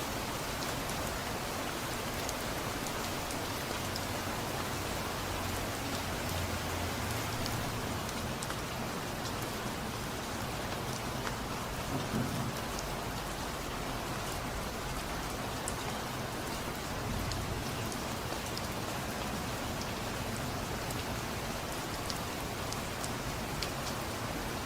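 Steady rain, a dense even hiss sprinkled with the ticks of single drops, with a low rumble of distant thunder swelling beneath it a few seconds in and again briefly near the middle.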